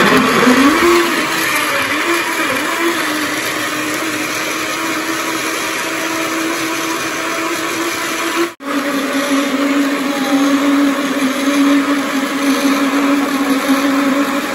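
Electric countertop blender switched on and running, chopping apple chunks into parsley, lemon and water. Its motor pitch wavers for the first few seconds as it breaks down the chunks, then settles into a steady whine. It cuts out for an instant about eight and a half seconds in, then carries on at a slightly lower pitch.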